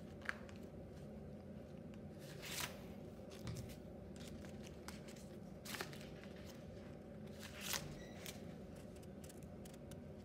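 Paper crinkling and rustling in several short bursts as a folded-paper model pistol is handled and its paper slide is pulled off the frame, over a steady low hum.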